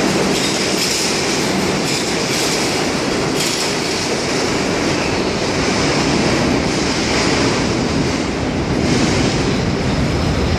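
New York City subway train running on the tracks through the station: a steady loud rumble of steel wheels on the rails, with clacking over rail joints and some wheel squeal.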